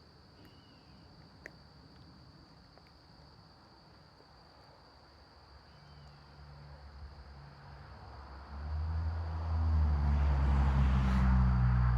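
Crickets trill steadily in a high, continuous tone. About halfway in, an engine's low hum fades in, and from about three-quarters in it grows much louder and takes over, with a rush of noise, like a motor vehicle coming close.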